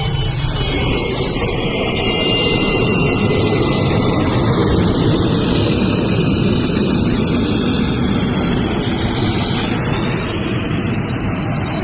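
Jet aircraft engines running on the ground: a loud, steady rush of noise with thin, high whines drifting above it.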